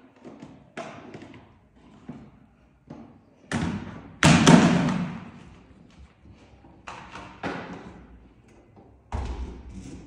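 A plastic canister vacuum cleaner, not running, knocking and thudding against a tiled floor and windowsill as a puma carries it in its mouth. A string of separate thumps; the loudest two come close together around four seconds in, and another comes just after nine seconds.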